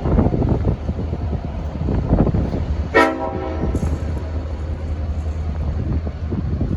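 A single short toot of a Leslie S5T five-trumpet locomotive horn about three seconds in, over heavy wind buffeting the microphone.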